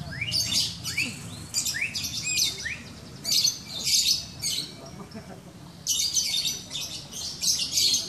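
Caged lovebirds singing in rapid, high-pitched chirping trills. The trills come in bursts of about a second with short pauses between them, and several birds overlap.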